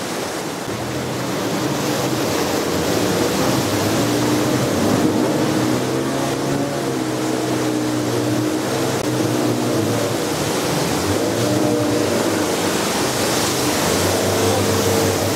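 Outboard motor of a wooden longboat running hard through river rapids, its pitch wavering a little, over the steady rush of whitewater against the hull.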